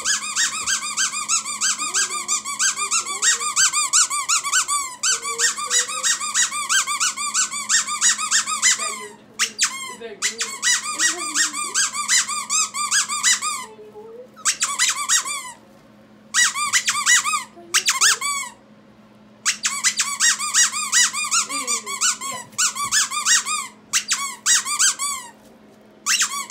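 Squeaky dog toy squeezed rapidly, several high squeaks a second, in runs of a few seconds broken by short pauses.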